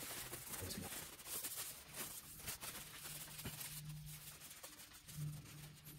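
Faint, irregular rustling and rubbing of a rag wiping down the lower legs of a Rock Shox suspension fork, cleaning off the freshly sprayed isopropyl alcohol.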